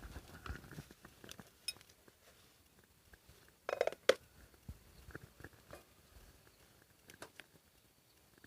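Scattered light clicks and knocks of small objects being handled, with a short, louder clatter about four seconds in.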